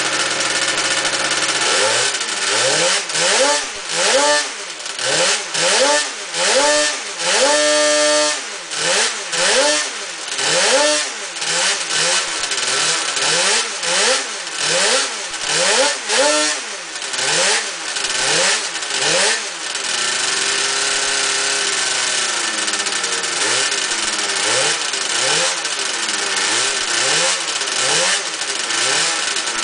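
Rotax 354 two-stroke twin snowmobile engine running on a dyno brake. Its revs rise and fall in repeated surges about once a second, then hold steadier with smaller wavers about two-thirds of the way in.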